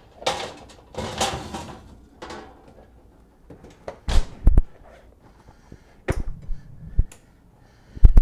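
An electric oven being worked: a scraping rush in the first two seconds, then a series of sharp clunks and dull knocks as the rack and door are handled and the door is shut.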